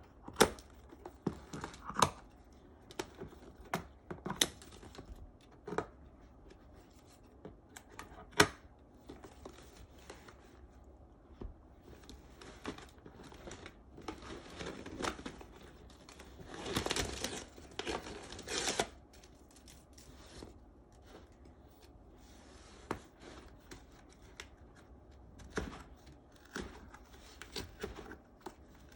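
Packaging being handled and opened: paper rustling and tearing, with many sharp clicks and taps. The longest stretch of rustling comes a little past the middle.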